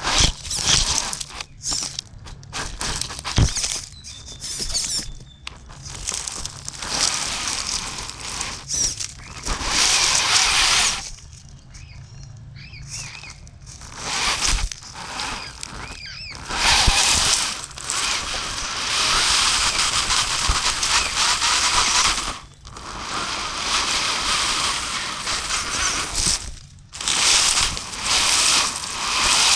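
Axial Capra RC crawler driving over rough ground in stop-start bursts: tyres crunching on dirt and stones, with a high whine from its electric motor and gears.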